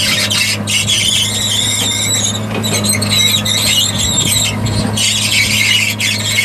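A 1987 Komatsu PC200LC excavator moving on its steel triple-grouser tracks. The track chain squeals loudly in high, uneven, wavering tones over the steady hum of its six-cylinder turbo diesel engine.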